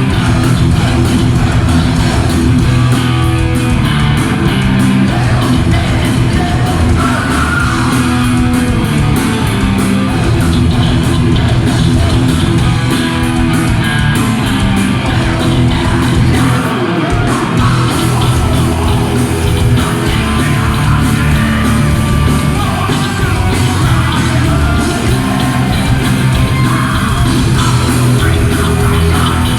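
Heavy metal band playing live: distorted electric guitars, bass and drums with a vocalist singing, at full volume in a large hall. The band stops for a moment about seventeen seconds in.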